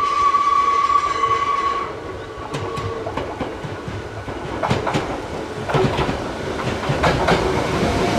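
Hakone Tozan Railway electric train running past, with a steady high whine for the first two seconds, then its wheels clacking irregularly over the rail joints.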